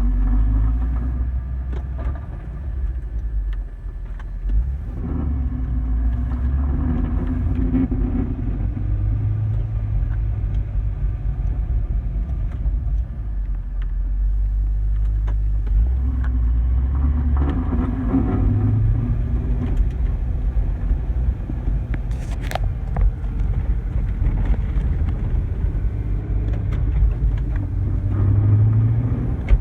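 Chevrolet Corvette C6's V8 and drivetrain under way in gear, a steady rumble whose pitch climbs several times, about every ten seconds, as the car accelerates, with a sharp click about two-thirds of the way through. It carries the odd noise that the owner hears only once the car is warm and driving in gear, not when revving at a standstill.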